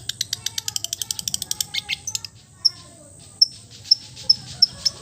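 Songbird calls: a fast chattering run of sharp, clicky high notes for about two seconds, then single sharp high chip notes spaced roughly half a second apart.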